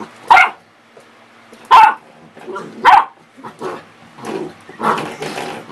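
Small puppy giving three short, sharp, high barks about a second and a half apart, with softer knocks and scuffles between them.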